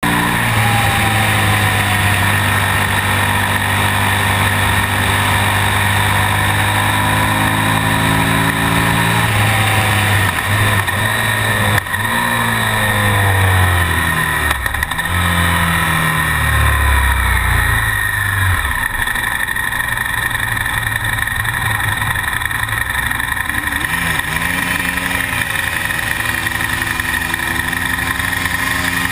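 Onboard sound of a KTM Super Duke's V-twin engine running at steady revs, then the revs dropping in steps as the bike slows, settling low near the end, with steady wind rush over the microphone.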